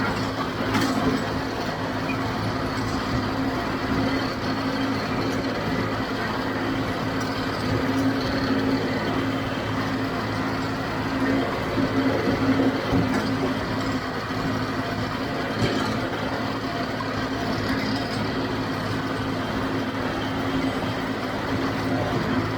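John Deere 5055D tractor's three-cylinder diesel running steadily under load while pulling a JD 348 square baler, with the baler's mechanical clatter mixed in.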